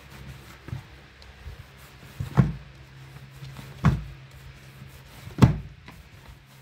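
Hands kneading a stiff flour-and-ghee dough in a plastic basin: three dull thumps about a second and a half apart as the dough is pressed and turned against the basin, with softer knocks and rubbing between.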